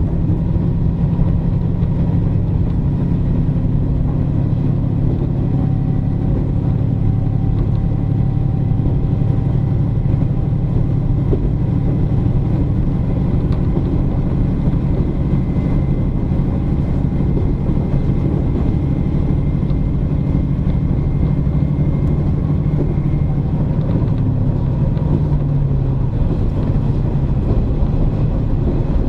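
KiHa 47 diesel railcar running along the line, heard from inside the car: a steady, loud diesel engine drone with wheel and running noise and a faint high whine in the middle. The engine note shifts slightly near the end.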